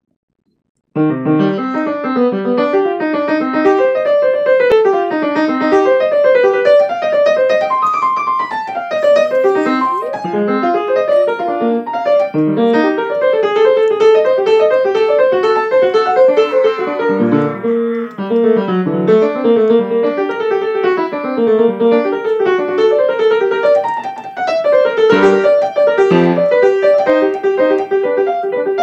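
Grand piano played at a quick pace, a dense stream of fast notes that starts about a second in.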